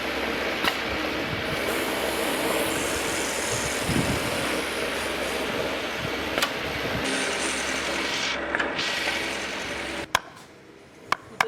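A power tool running steadily as it cuts cypress wood, with occasional knocks, cutting off suddenly about ten seconds in; a few sharp clicks follow.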